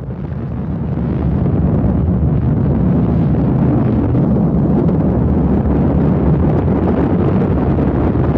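Europa rocket's Blue Streak first stage at liftoff: a deep, steady rocket-engine roar that swells about a second in and then holds.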